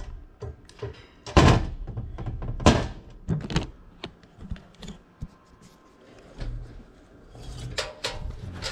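Knocks and bumps of hands and tools working inside an air handler's sheet-metal cabinet around the blower housing. Two loud knocks come in the first three seconds, then a few lighter ones, and a cluster of clicks near the end.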